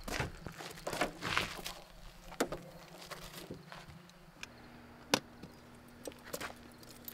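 Footsteps crunching on gravel, then a Chevrolet Impala's trunk being opened and things shifted about inside it, a string of crunches, clicks and knocks. A low steady hum comes in about halfway through.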